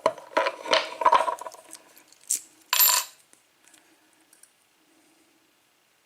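Metal parts of a disassembled padlock clinking and rattling against each other and a hard surface as they are handled and set down, a run of sharp clicks and clinks for about three seconds with a louder clatter near the middle.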